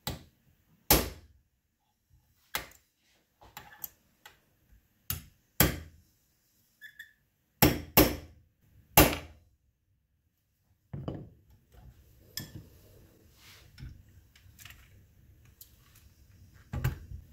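Small hammer tapping a steel pin home through the hand lever and breech bolt of a Winchester (Miroku) 1886 rifle: about nine sharp metallic taps at an irregular pace over the first ten seconds. Softer knocks and clicks of parts being handled follow.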